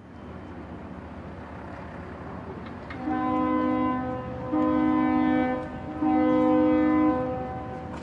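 Ship's horn sounding three blasts of about a second each, a low two-note chord, after a few seconds of steady rumble.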